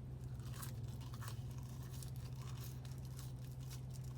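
A steady low hum with faint scattered clicks and rustles.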